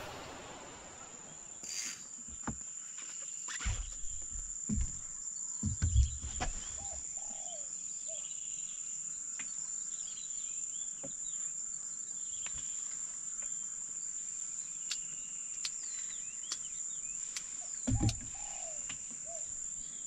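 A steady, high-pitched insect drone, with scattered short bird chirps and a few dull knocks, the loudest about six seconds in and again near the end.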